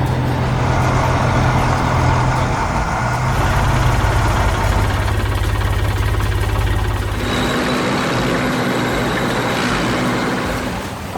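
Engine of a heavy construction machine running with a deep, steady drone. The drone shifts about three seconds in and drops away about seven seconds in, leaving a rougher, noisier machine sound.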